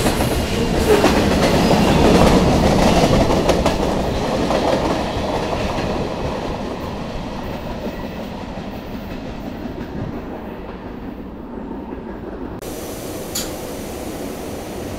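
CSX freight train of tank cars rolling past on the rails, its wheels clacking and rumbling loud at first and fading over several seconds as it moves away. About twelve and a half seconds in, the sound changes abruptly to a quieter, steady background.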